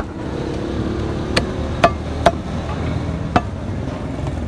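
Butcher's blade chopping beef on a wooden chopping block: several sharp, unevenly spaced strikes, over a steady low background rumble.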